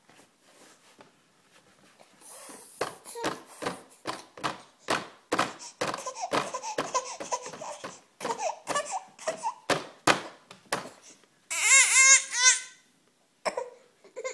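A baby laughing and babbling in quick short bursts, then letting out a loud, high-pitched squeal with a wavering pitch about twelve seconds in.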